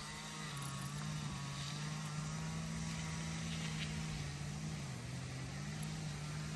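A steady engine drone with a low hum, dipping slightly in pitch about three seconds in and again near five seconds.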